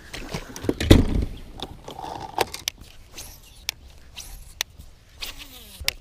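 Scattered light clicks and knocks from fishing gear being handled in a bass boat, one louder knock about a second in. Near the end a fly starts buzzing close by, its pitch sliding up and down.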